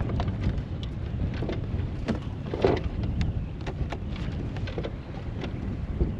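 Wind buffeting the microphone on a fishing kayak, a steady low rumble, with small waves slapping against the hull every so often.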